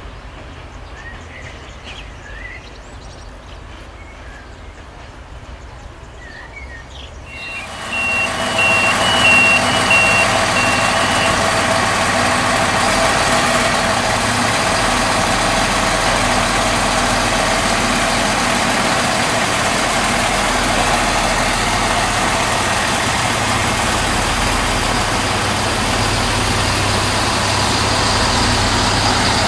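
A CFR Siemens Desiro diesel multiple unit's engines running steadily and loudly as the railcar pulls away. Just as it starts there is a string of short high beeps. Before that, for the first several seconds, quieter rail-yard sound with a few bird chirps.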